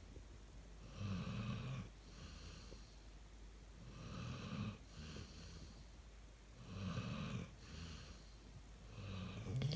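Golden retriever snoring in her sleep, in a slow regular rhythm: four snores about three seconds apart, each louder snore followed by a softer breath.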